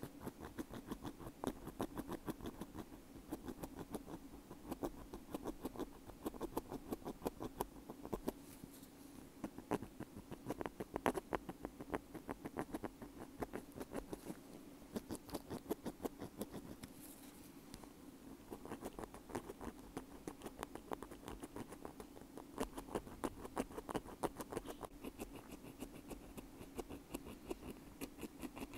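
Bamboo ear pick scraping against a wired earbud: close, crackly scratching in quick strokes, several a second, with a few short lulls.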